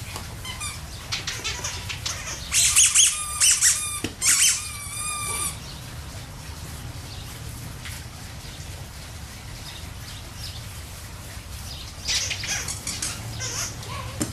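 Two clusters of short, high-pitched squeaks with wavering pitch, the first about two and a half seconds in and the second near the end, over a steady low hum.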